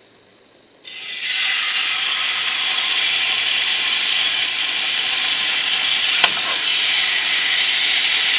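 Marinated sliced pork sizzling in a hot pan. The sizzle starts suddenly about a second in as the meat meets the hot surface, then holds as a steady, loud sizzle.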